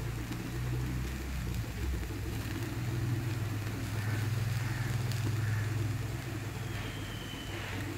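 Engine idling, a low steady rumble.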